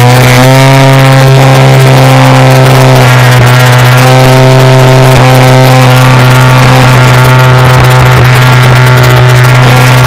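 Engine and propeller of an RC aerobatic model airplane running steadily in flight, heard loud and close from a camera mounted on the plane. Its pitch steps up slightly about half a second in.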